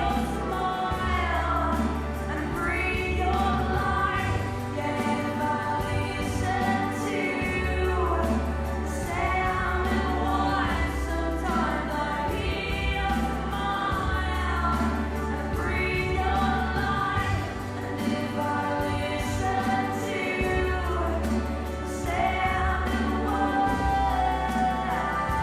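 Choral music: layered voices singing over long, sustained deep bass notes that change every few seconds.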